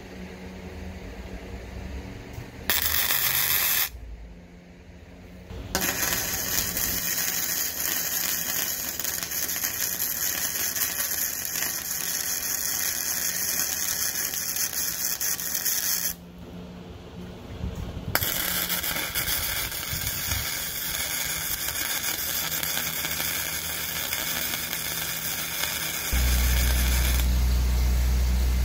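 MIG welder running flux-core wire, welding quarter-inch-wall steel tubing with a steady crackling hiss. The arc runs in three beads: a short one a few seconds in, a long one of about ten seconds, and another of about eight seconds after a short pause. Near the end the crackle gives way to a steady low hum.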